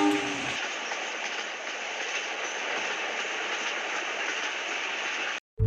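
A train horn cuts off about half a second in, followed by the steady rushing noise of a train running past, which stops abruptly near the end.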